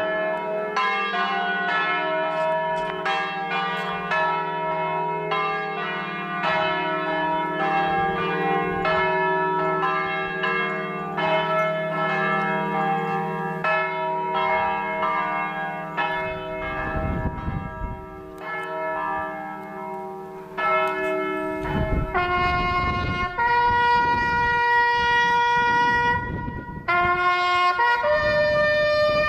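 Church bells ringing, many overlapping strikes for about sixteen seconds before dying away. About twenty-two seconds in, a solo trumpet starts playing long held notes, with wind rumbling on the microphone.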